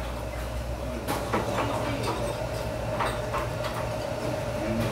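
Restaurant dining-room ambience: a steady low hum and a steady higher tone under faint background voices, with a few light clicks about a second and three seconds in.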